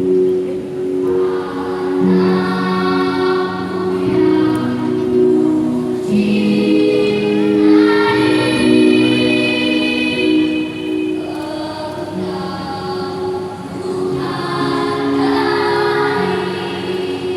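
Children's choir singing in parts, holding long sustained notes that change together every second or two.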